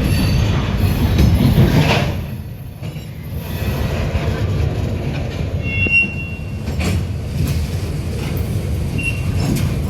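Ferromex freight train rolling by: a steady low rumble of wheels on rail, with short high wheel squeals about six and nine seconds in.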